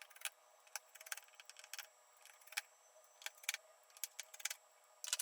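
Faint, scattered clicks and ticks of a precision screwdriver unscrewing the small screws from a Samsung Galaxy A03s's midframe, sped up.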